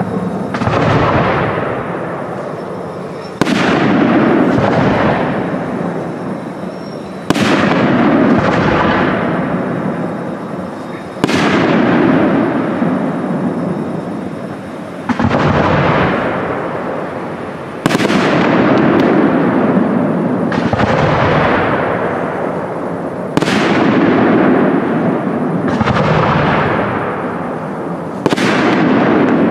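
Aerial firework shells bursting in a display: about nine heavy bangs, one every three to four seconds, each trailing off in a long echo that fades before the next.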